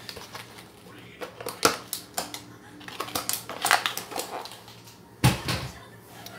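Plastic blister packaging of a 1/64 die-cast car being cracked open and handled: scattered clicks and crackles, with one heavier thump about five seconds in.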